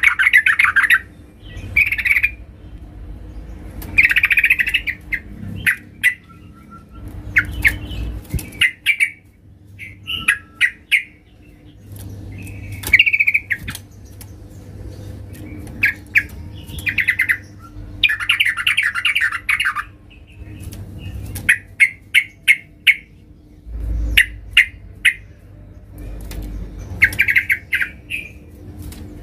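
Female yellow-vented bulbul (trucukan) calling to a male: short, rapid bursts of chattering notes repeated every second or two, with a faint steady hum underneath.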